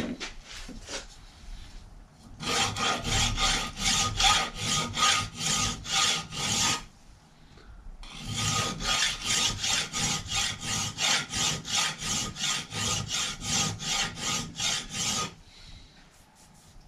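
Hand file working a steel bicycle crank cotter pin, taking a narrow edge off it to re-flatten it. The file goes in two runs of quick back-and-forth strokes, about three a second, with a faint metallic ring.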